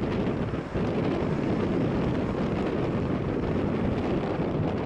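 Heavy wind buffeting the microphone over the steady rumble of an MD-11F freighter's jet engines as it slows on the runway after landing.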